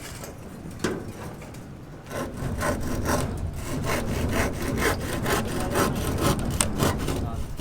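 Hand saw cutting through wood, with steady back-and-forth strokes about two to three a second, starting about two seconds in.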